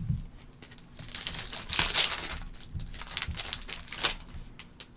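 Foil wrapper of a trading card pack crinkling as it is torn open, loudest about two seconds in, with short clicks and taps of handling throughout.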